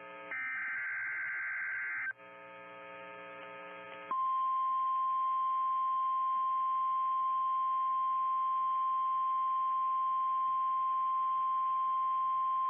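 NOAA Weather Radio alert signalling: a buzzy digital data burst of the SAME header ends about two seconds in, and a quieter buzzing hum follows. About four seconds in, the 1050 Hz warning alarm tone starts and holds steady for about nine seconds. It is the signal that a warning is about to be read.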